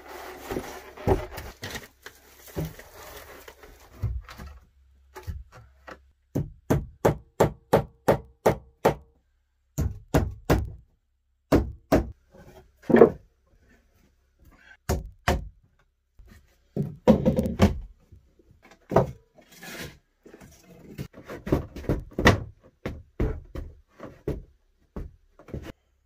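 Hammer driving nails into wooden boards in runs of quick strikes, about four a second, broken by pauses, along with other wooden knocks and thuds as planks are handled.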